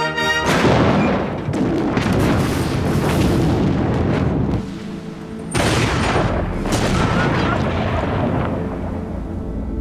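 War-film battle sound effects: a series of heavy artillery-style explosions and booms, with a brief lull about halfway through before more blasts.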